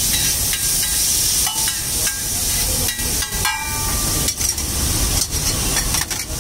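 Egg mixture sizzling and steaming on a hot flat iron griddle (tawa), a steady hiss, with scattered short clicks and scrapes of a metal spatula on the iron.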